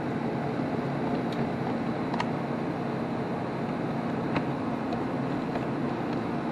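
Steady low background hum, with a few faint clicks of the Roomba's plastic brush assembly being handled during the swap.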